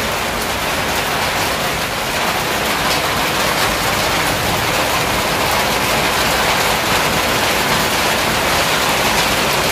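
Rain falling steadily, an even dense hiss that grows slightly louder.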